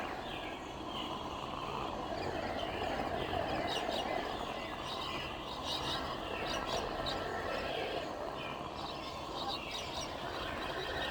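Sound-designed alien jungle ambience: a dense, steady bed of creature-like noise, overlaid by chirping, bird-like calls and quick clicking calls that gather in two spells, about four seconds in and again near the end.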